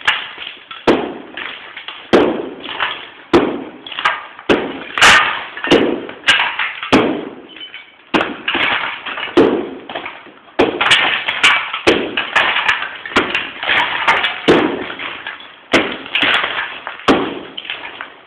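Repeated blows knocking chunks of plaster off a wall, about one a second, each a sharp crack followed by a brief rattle of crumbling pieces.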